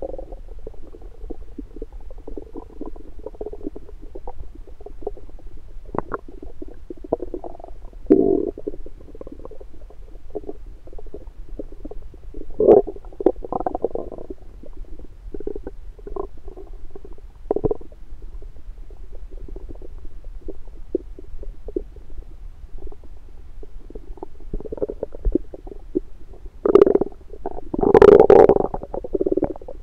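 Stomach and intestinal gurgling, heard through an electronic stethoscope pressed to the belly after a meal: digestion at work. A run of small, irregular gurgles and rumbles, with stronger gurgles about eight and thirteen seconds in and the loudest, longest gurgle near the end.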